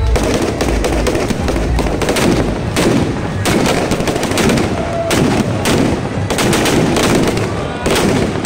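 Firecrackers bursting on the ground in a rapid, unbroken series of loud cracks, like a long string of crackers going off.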